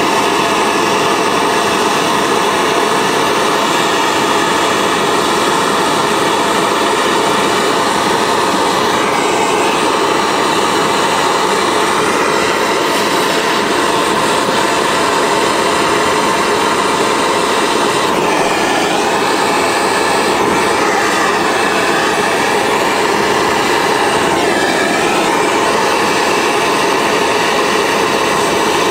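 Handheld propane torch burning steadily with a continuous roaring hiss, its tone wavering briefly a few times as the flame is moved.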